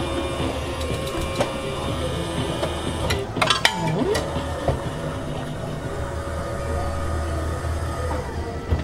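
Candy scoop vending machine's electric motor running steadily as the metal scoop travels over the lollipops. About three and a half seconds in, its pitch dips and rises as a cluster of sharp clicks and rattles sounds.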